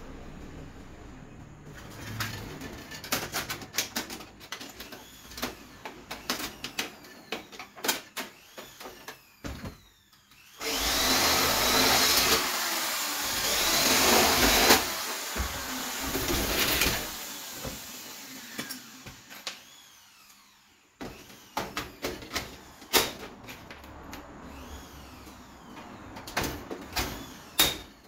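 Cordless drill running for about four seconds in the middle, then in a few shorter bursts, working on an aluminium cabinet frame. Scattered clicks and knocks of aluminium parts being handled come before and after.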